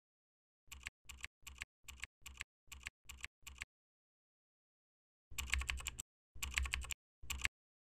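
Computer keyboard keystrokes: eight single key taps at an even pace, then after a pause three quick flurries of keys.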